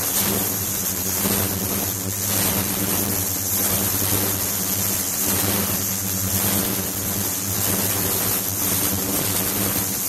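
Ultrasonic cleaning tank running: a steady hum of several tones with an even hiss over it and a faint high whine.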